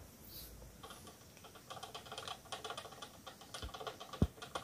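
Electric drip coffee maker beginning to heat its water: a faint, irregular crackle of small ticks that starts about a second in and builds, the sign that the heating element works again after its thermal fuse was replaced. A single thump near the end.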